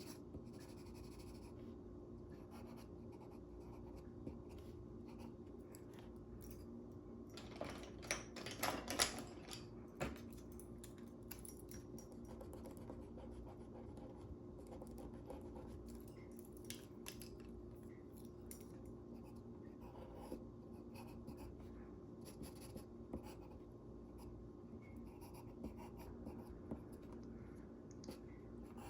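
Faint scratching of a drawing tool on paper in quick sketching strokes, with a louder flurry of strokes about eight seconds in.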